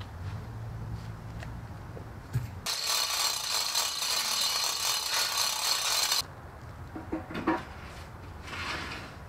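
Metalworking on steel: a loud, harsh, even hiss that starts abruptly a little under three seconds in and cuts off about three and a half seconds later. A low steady hum comes before it, and a few sharp knocks come after it.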